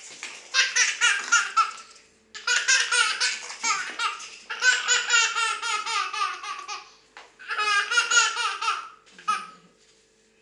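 Baby laughing hard in four long fits, each a quick run of high-pitched laughs, with short pauses for breath between them.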